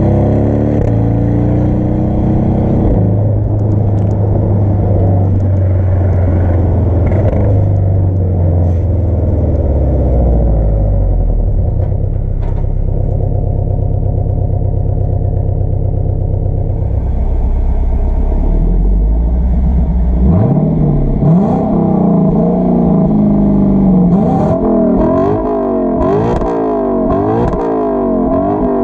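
Sports car engine running steadily, then revved: the pitch climbs about two-thirds of the way through, and near the end it is blipped quickly several times, rising and falling in pitch.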